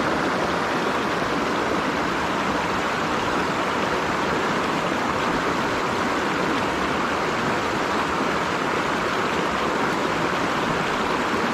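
Mountain stream water rushing steadily over rocks, an even hiss-like roar with no break.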